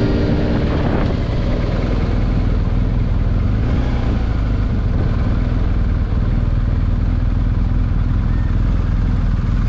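BMW R 1250 GS boxer-twin engine running at low revs under a steady low rumble of wind and road noise, as the motorcycle slows down.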